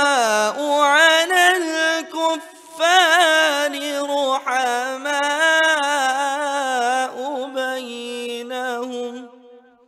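Melodic Qur'an recitation (tajweed): a single voice drawing out one long ornamented phrase with sliding runs, trailing off near the end.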